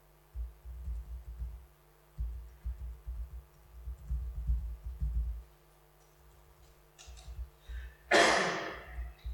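Laptop keyboard being typed on in runs of quick keystrokes, heard as low muffled thumps through the lectern, while a terminal command is entered. About eight seconds in, a short loud breathy rush, an exhale close to the microphone, is the loudest sound.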